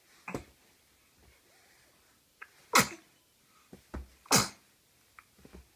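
A baby sneezing twice, about a second and a half apart.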